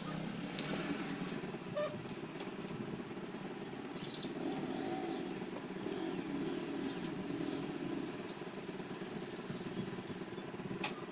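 Cotton and silk blouse fabric pieces being handled and smoothed flat on a table, with light rustling and a sharp click about two seconds in and another near the end, over a steady low background hum.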